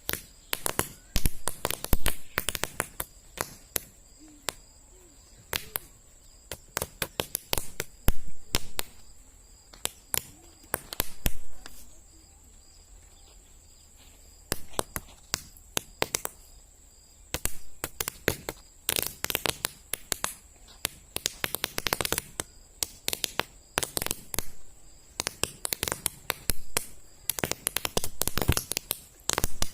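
Paper roll caps (toy cap-gun caps) going off in a long, irregular string of sharp pops and cracks, sometimes in quick clusters, with a pause of a couple of seconds near the middle.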